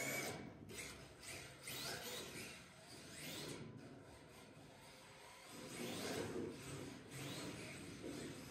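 Rear-wheel-drive electric RC drift cars sliding on carpet: a raspy scrubbing of hard tyres on the carpet, with a whine that rises in short sweeps on each throttle burst, about five times.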